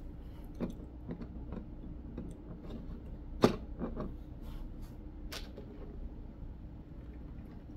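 Plastic LEGO pieces clicking and tapping as a branch piece is handled and pressed onto a small brick build: a handful of sharp clicks, the loudest about three and a half seconds in.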